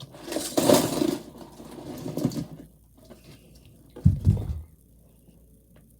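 Rustling and clattering of fidget toys being handled and moved into a container for about two seconds, then a dull thump about four seconds in.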